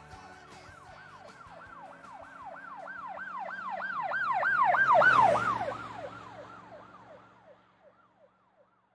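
Siren wailing in quick rising-and-falling sweeps, about three a second, growing louder to a peak about five seconds in and then fading away.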